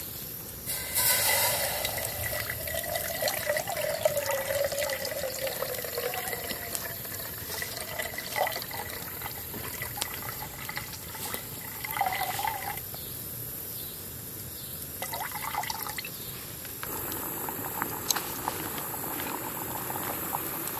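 Water poured from a plastic bottle into a metal cook pot: a long pour beginning about a second in, then a few shorter pours and splashes later on.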